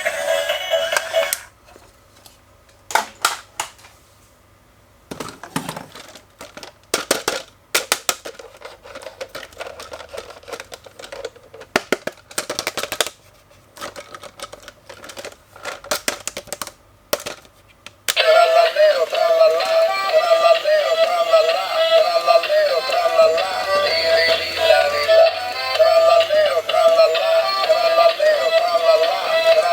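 Irregular clicks and knocks of a plastic toy and its packaging being handled. About 18 seconds in, the electronic toy's sound chip starts a loud, warbling synthesised tune that wavers in pitch and runs on.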